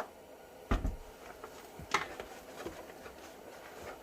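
Handling noise from unpacking shop vacuum parts: a few knocks and clicks of plastic parts being picked up and set down, with one heavier thump about a second in.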